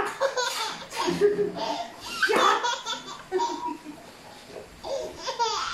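A toddler laughing hard in several bursts of giggles.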